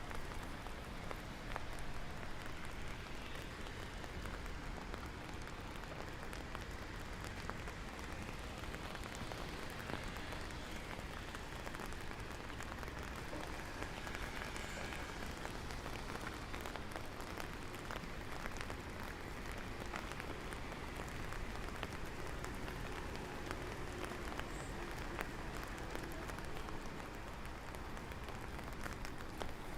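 Steady rain falling on hard surfaces, with many small drop ticks throughout.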